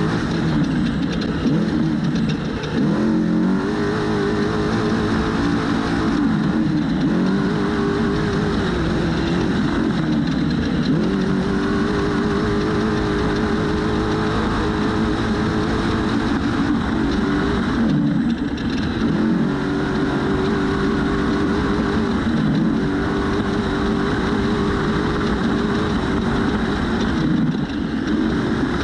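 Trophy truck engine running hard at high revs. The revs dip briefly and climb back again about six times over the stretch, over a steady rushing noise.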